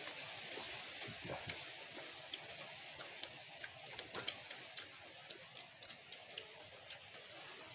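Small, irregular clicks and smacks of people eating with their hands: lips smacking and fingers picking at fish over a faint steady hiss.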